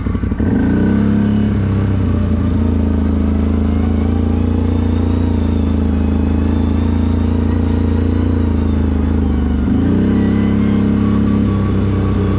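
CFMoto 1000 ATV's V-twin engine under way: the revs climb about half a second in and hold steady, drop briefly near ten seconds as the throttle is let off, then climb again.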